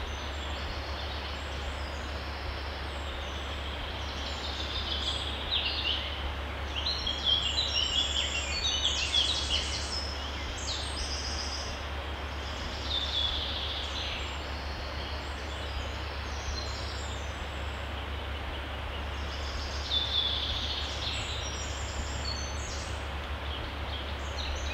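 A stream running with a steady rush while several songbirds sing over it in scattered chirps and trills. The birdsong is busiest about a quarter of the way in and comes again in shorter bouts later.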